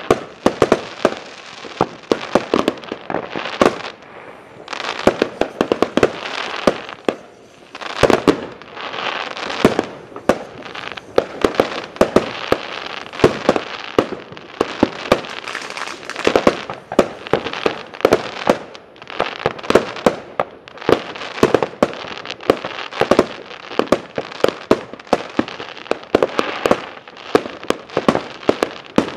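Many fireworks going off at once: a dense, irregular string of sharp bangs from bursting aerial shells and rockets, with continuous crackling between the bangs.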